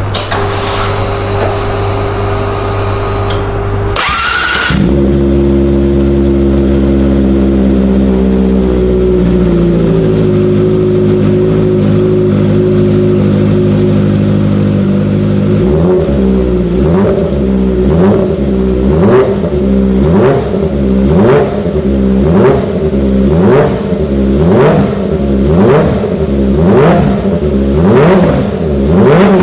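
Kawasaki Ninja ZX-25R's 250 cc inline-four engine starting about four seconds in and running at a steady fast idle that settles slightly lower. After that it is revved in quick blips, about one a second, each rising sharply in pitch and falling back.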